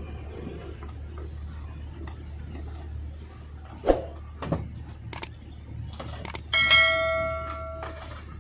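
Clicks from a subscribe-button animation sound effect, then a bright bell ding about two-thirds of the way in that rings out and fades. A low steady hum runs underneath.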